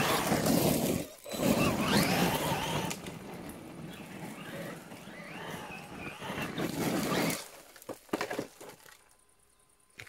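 Traxxas Maxx RC monster truck running flat out on gravel: the electric motor and gears whine, rising and falling with the throttle, over the noise of the tyres on loose stones. The run stops about seven seconds in, followed by a few light knocks.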